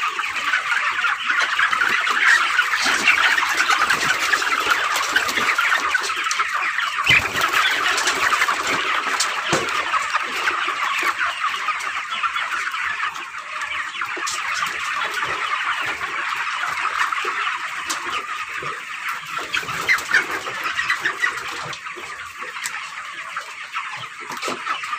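A large flock of 25-day-old broiler chickens calling all at once: many high calls overlapping in a dense, steady chorus.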